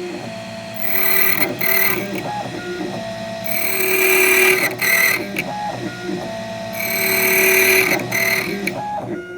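ITL 9700A electronic key machine cutting a Yale key. Its stepper motors whine in short steady tones and pitch steps as the carriage moves. Three times, about three seconds apart, there is a loud high-pitched stretch of about a second as the cutter works the blade.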